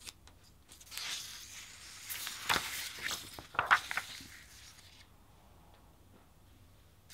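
Sheets of paper rustling and sliding over one another as a printed page is laid on the pile, with a few sharp crinkles partway through; the rustling stops about five seconds in.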